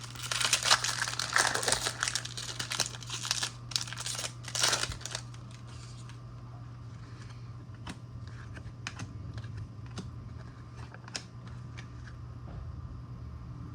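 Foil wrapper of a trading-card pack crinkling and tearing as it is opened, loud for about the first five seconds. After that come scattered light clicks of cards being handled, over a steady low hum.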